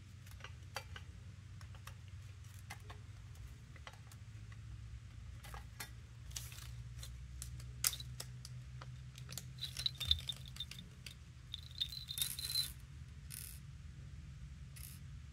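Light clicks and taps of a metal end plate being fitted to an aluminium enclosure, then a small plastic bag crinkling in bursts as it is opened and tiny screws rattling out onto the table.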